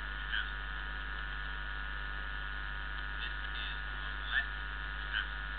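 Steady electrical mains hum, with a few brief faint chirps falling in pitch about half a second in and twice near the end.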